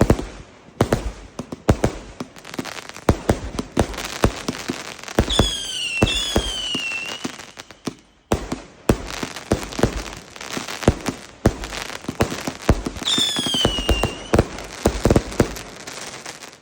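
Fireworks going off: dense, irregular sharp cracks and bangs, with whistling shells whose whistle falls in pitch, two about five seconds in and another near thirteen seconds.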